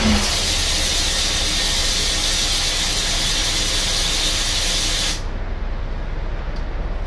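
Steady, strong hiss of air blowing through a homemade pulsejet from its compressed-air starting nozzle after the engine has stopped firing, cut off abruptly about five seconds in. A falling tone from the engine dies away right at the start.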